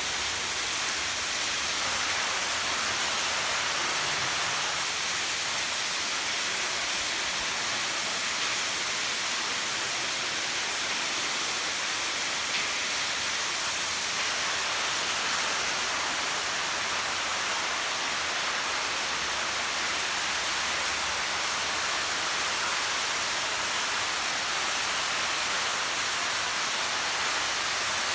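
Steady rush of water from a swimming-pool water feature, jetting, falling and splashing without a break.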